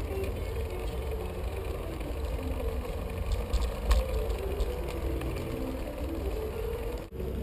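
Steady low rumble of a bicycle rolling over paving, picked up by a bike-mounted action camera, with a sharp jolt about four seconds in. Faint music plays underneath.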